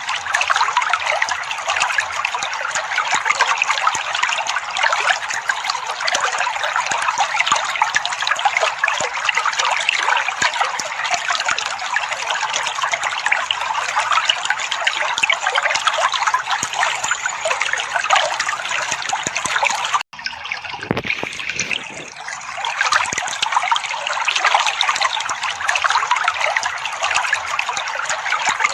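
Trickling, babbling water running steadily. About twenty seconds in it cuts off for an instant and starts again.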